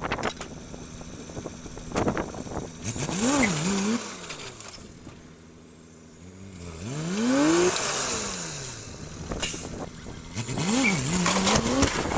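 A heavy vehicle's engine revving up and falling back three times, each rise and fall lasting a second or two, with the engine running between the revs.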